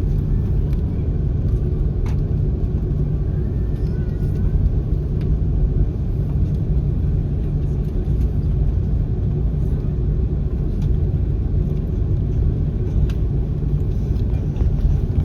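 Steady low rumble of an Airbus A330-300's engines and airflow heard inside the passenger cabin, with a faint steady hum and no change in level.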